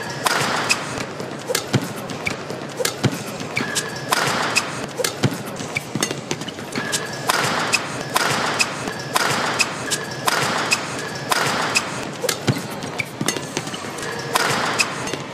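Badminton singles rally: repeated sharp racket strikes on the shuttlecock, mixed with players' footfalls and shoe squeaks and scuffs on the court floor. The hits come irregularly, several a second at times, and short patches of scuffing noise recur every second or so.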